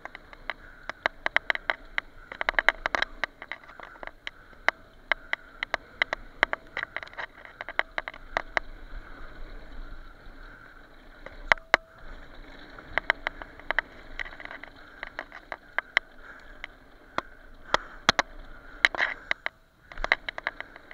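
Mountain bike riding down a dirt trail: a steady rush of tyre and trail noise, broken by many sharp, irregular clacks and rattles as the bike jolts over bumps.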